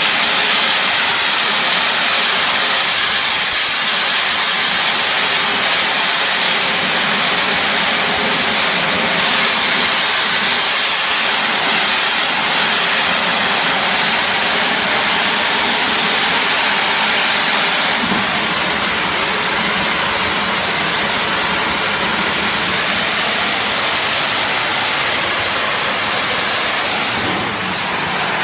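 High-pressure car-wash pump, driven by a large electric motor, running while its lance sprays a hard jet of water: a loud, steady hiss. The hiss eases slightly about two-thirds of the way through.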